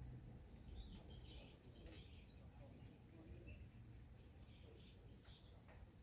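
Faint, steady chorus of crickets: an unbroken high-pitched trill, with a low rumble beneath and a few faint scattered chirps.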